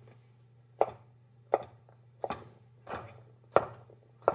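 Chef's knife dicing an English cucumber on a cutting board: about six sharp chops, roughly one every two-thirds of a second, each blade strike knocking on the board.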